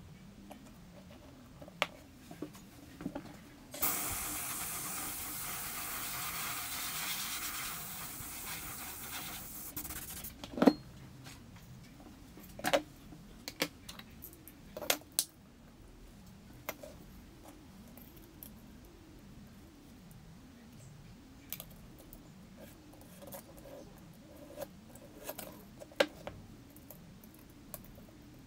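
Small hand tools and parts being handled and set down on a glass-topped workbench: scattered sharp clicks and light knocks. About four seconds in, a steady hiss sounds for about six seconds, and the loudest knock comes just after it stops.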